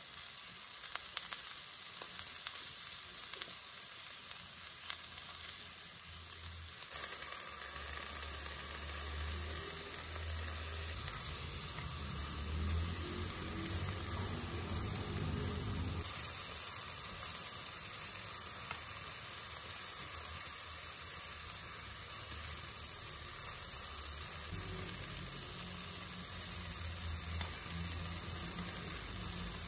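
Sliced onion, zucchini and mushrooms sizzling in a nonstick wok, with light clicks of chopsticks against the pan as the vegetables are turned. The sizzle grows louder about seven seconds in.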